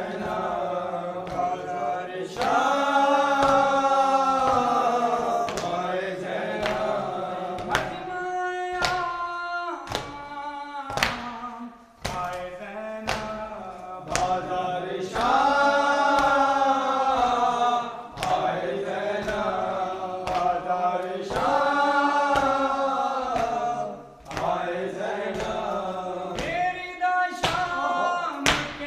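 Group of men chanting a noha, a Shia Urdu lament, in unison behind a lead voice, with sharp hand strikes of matam (chest-beating) keeping a steady beat.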